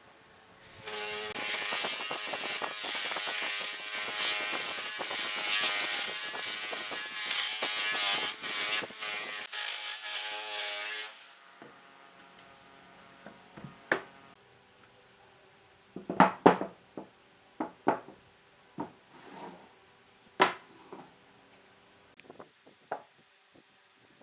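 An electric power tool running steadily against wood for about ten seconds and then cutting off, followed by a series of short, sharp knocks and clicks of wood being handled.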